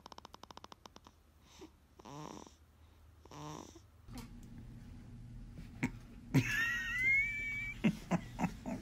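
A sleeping newborn breathing with a fast, rattly snore that fades out, then two small sighing grunts that fall in pitch. After that comes a high, wavering squeal of about a second and a half, with a few sharp clicks around it.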